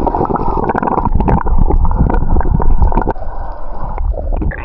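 Handling noise on the phone's microphone as it is put away: loud muffled rumbling with many small knocks and clicks.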